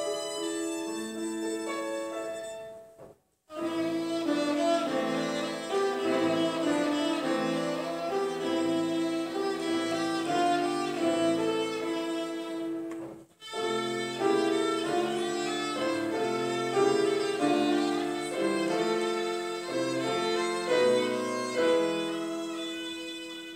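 Violin playing a melody with grand piano accompaniment. The sound cuts out completely for a moment twice, about three seconds in and again about thirteen seconds in.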